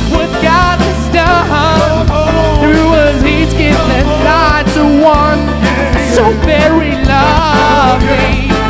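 Upbeat pop song with a sung lead vocal over a band with bass and a steady beat.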